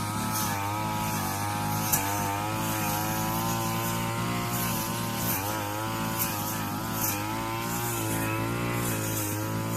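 Brush cutter fitted with a circular blade, its engine running steadily while cutting grass, its pitch wavering slightly, with scattered short sharp ticks.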